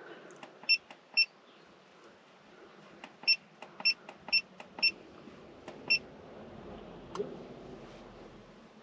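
Bosscomm IFIX435 handheld scan tool beeping at each button press as the menu is scrolled: about a dozen short, high, identical beeps at an uneven pace, bunched in the first six seconds. A single click follows near the end.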